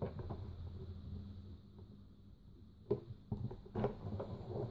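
Light clicks and knocks of hands handling a Spellbinders Platinum 6 die-cutting machine as its crank handle is tightened on. Faint fiddling at first, then a quick scatter of small clicks and knocks in the second half.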